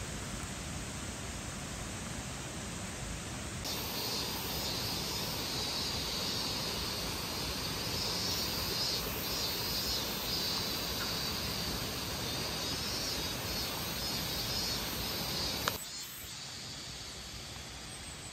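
Water pouring steadily into a mug, then a rocky mountain stream rushing, with a high, steady insect chirring over it. Near the end a click, and the rushing drops to a quieter background.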